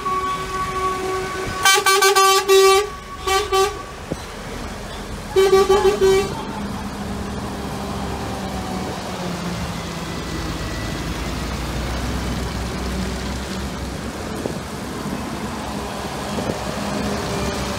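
Truck horns honking several times in the first six seconds, then heavy trucks driving slowly past on a wet road with their diesel engines running.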